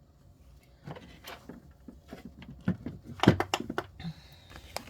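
Small clicks, taps and knocks of objects being handled and set down on a tabletop, coming thickest and loudest about three seconds in.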